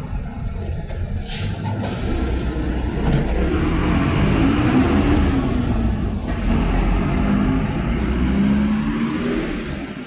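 City bus pulling away from a stop: its diesel engine rumbles and labours as it accelerates, loudest in the middle and fading near the end. A hiss of air brakes releasing comes about two seconds in.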